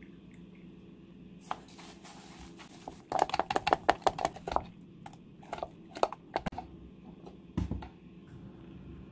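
Kitchen food-preparation sounds: a quick run of sharp clicks and taps about three seconds in, lasting under two seconds, then a few scattered taps.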